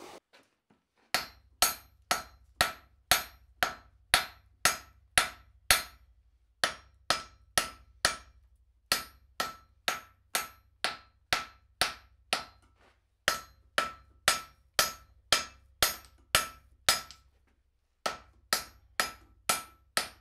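Hand hammer striking a hot steel block on an anvil, about two blows a second in runs of several blows with short pauses between, each blow ringing briefly. The smith is forging a bevel around the edges of the block at forging heat.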